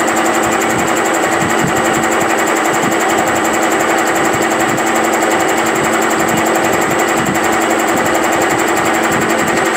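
Milling machine end mill cutting a keyway into a steel Tecumseh crankshaft, taking a 0.030-inch pass under power table feed. The cutting noise is loud and steady.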